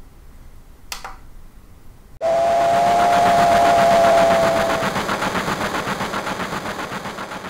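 Steam locomotive whistle blowing one long steady blast over rhythmic chuffing, starting suddenly a couple of seconds in; the whistle stops partway and the chuffing slowly fades out. Before it, quiet room tone with a single click.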